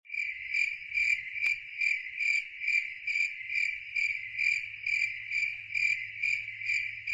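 Crickets chirping in a steady, even rhythm, a little over two chirps a second.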